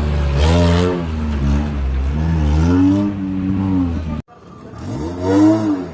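Engines of modified off-road 4x4s revving, pitch rising and falling in repeated surges over a steady low drone. The sound cuts off abruptly about four seconds in, then comes back with another rev.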